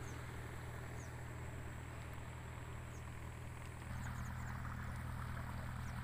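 A steady low motor drone, stepping up in level about four seconds in, with faint short high chirps repeating over it.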